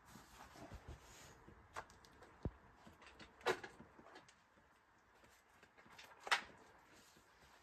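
Quiet movement sounds of a boulderer climbing a low rock roof: a few brief, sharp sounds, the loudest about three and a half and six seconds in.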